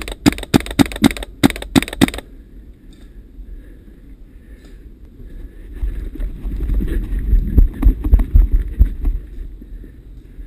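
An airsoft gun firing a quick string of about ten shots in the first two seconds. Later comes a stretch of low rumbling with scattered knocks.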